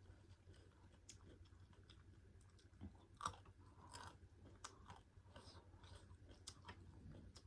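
Faint chewing and wet mouth sounds of a person eating pork curry with rice, with scattered soft clicks; the sharpest click comes a little over three seconds in.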